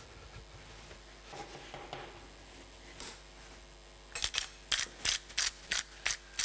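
Pepper mill grinding over raw chicken breasts in quick short twists, about three crunching strokes a second, starting about four seconds in; before that only faint handling sounds.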